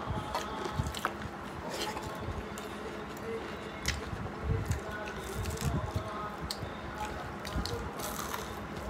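Close-up eating sounds: wet squishing as rice and curry are mixed by hand, with chewing and mouth noises and many small scattered clicks.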